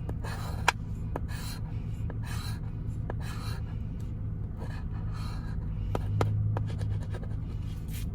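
Scratch-off lottery ticket being scratched: short, repeated scraping strokes across the latex coating, which is really sticky, with a few sharp clicks. A steady low hum runs underneath.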